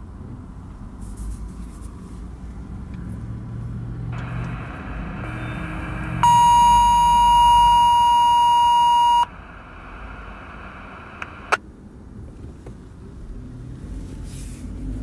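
Uniden handheld scanner picking up a fire dispatch channel: radio hiss opens up, then a single steady high alert tone sounds for about three seconds, followed by more hiss and a click. The tone is the dispatch alert that comes before a call goes out to a fire engine. A low vehicle rumble runs underneath.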